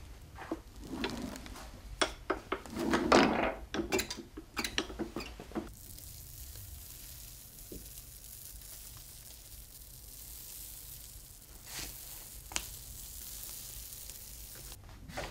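Printing paper being peeled slowly off a tacky, inked lino block, giving a fine steady crackle with a few sharper ticks near the end. Before it comes a run of knocks and rustles from handling at the roller press.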